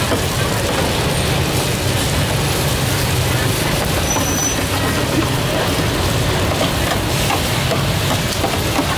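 Busy street-market ambience: a steady low rumble under background chatter, with a few light clicks in the last seconds.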